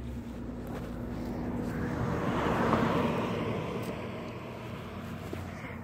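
A vehicle passing by, its noise swelling to a peak and fading away over a few seconds.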